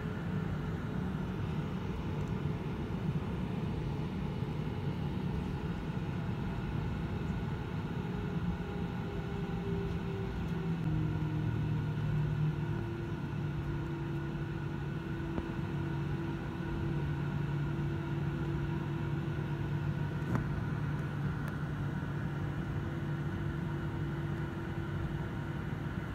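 Jet airliner's engines running at low taxi power, heard inside the cabin as a steady rumble and hum; a few engine tones step down in pitch about ten seconds in.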